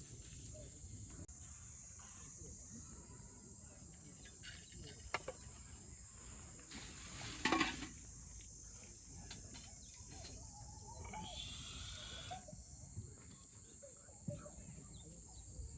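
Steady high-pitched chorus of insects, with a few small knocks and one brief louder noise about seven and a half seconds in.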